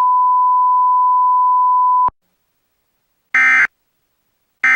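A steady electronic beep tone holds for about two seconds and cuts off sharply. After a short silence come two brief bursts of EAS SAME digital data code, about a second and a quarter apart: the end-of-message signal that closes an emergency alert broadcast.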